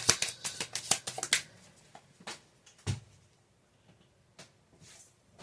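Tarot cards being shuffled by hand: a quick run of crisp card clicks for about the first second and a half, then a few separate snaps and taps as single cards are drawn and handled.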